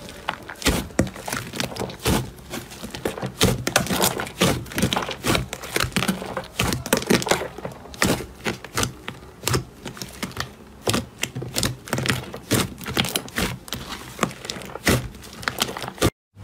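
Slime being squeezed and poked, giving a dense, irregular run of sharp clicks, pops and crackles, several a second.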